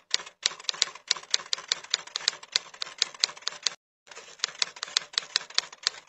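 Typewriter typing sound effect: rapid key clicks, about five a second, with a brief break just after the start and a slightly longer pause about two-thirds through.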